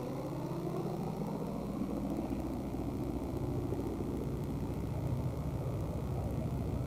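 Small single-engine propeller plane flying overhead, its engine droning steadily.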